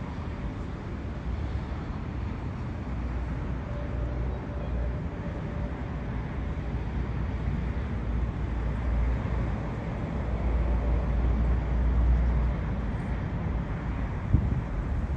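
Jet airliner on final approach passing low overhead: a steady low engine rumble that builds to its loudest about twelve seconds in. Wind knocks on the microphone near the end.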